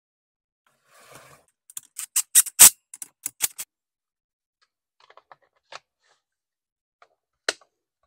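Sharp clicks and knocks of a Stihl MS250 chainsaw's plastic housing and covers being handled and fitted back on. A quick run of about nine knocks comes in the second and third seconds, then a few faint clicks, and one sharp click near the end as the top cover is pressed into place.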